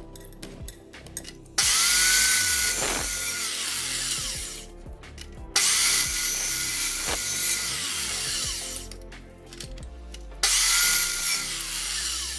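A small electric power tool run in three bursts of about three seconds each. Each burst starts abruptly with a high whine and hiss, holds steady, and winds down as it stops.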